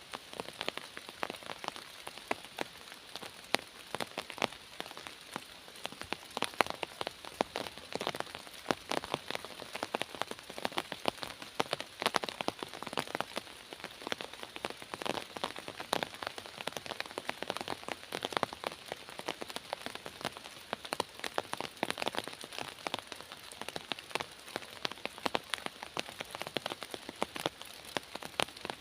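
Steady rain falling in a forest, with dense, irregular drop impacts pattering on leaves and the ground.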